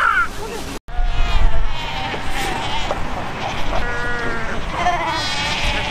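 A Cape fur seal colony calling: many overlapping, drawn-out calls from the seals on the rocks, over the steady sound of surf breaking.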